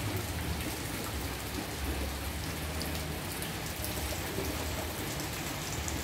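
Rain falling steadily on the surfaces around a house, an even hiss with scattered drop ticks.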